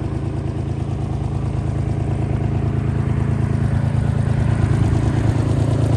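Bobcat 322 mini excavator's three-cylinder Kubota diesel idling steadily, growing gradually louder.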